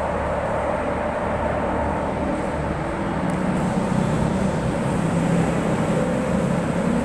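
Steady rumble and hum of an MRT-3 metro train running near the platform, with a lower drone that strengthens about four seconds in.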